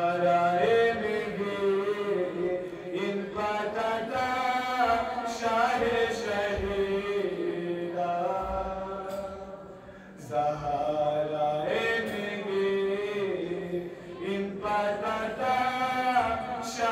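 A man chanting a Balti qasida, a devotional poem, solo into a microphone in long, held melodic lines, with a short pause a little past halfway.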